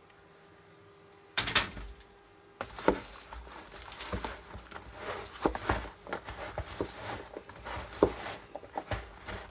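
Spoon stirring sticky caramel-coated popcorn in a bowl: irregular knocks and scrapes against the bowl with rustling popcorn, starting after about a second and a half of quiet.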